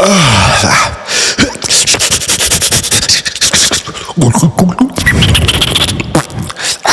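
Beatboxer imitating cartoon sound effects with voice and mouth. It opens with a falling pitch glide, then a fast run of clicks lasting a couple of seconds, then more wavering pitched vocal sounds and hissing.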